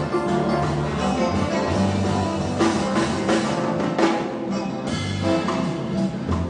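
Live gospel music: a mass choir with band accompaniment, a drum kit keeping a steady beat.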